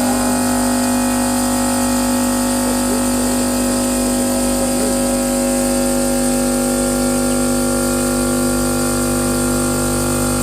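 A CNC stone machine's spindle motor running steadily at a set speed: one even, pitched whine over a hum, with no change in speed.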